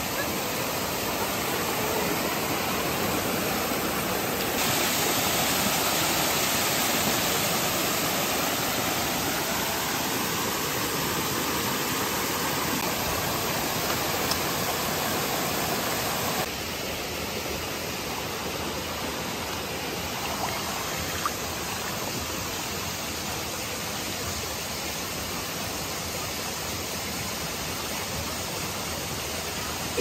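Steady rush of a shallow mountain stream flowing over rocks and a small cascade. The sound shifts slightly twice, about four and sixteen seconds in.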